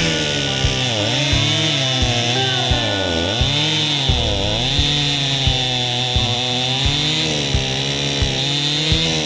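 Stihl chainsaw running under load, its pitch dipping and recovering again and again as the chain bites into the wood. Music with a steady beat of about one and a half thumps a second plays along with it.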